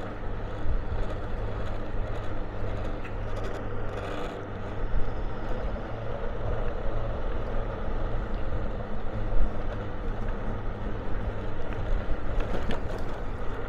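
Motorbike riding along a town street: the engine runs steadily, with wind and road noise rushing over the microphone.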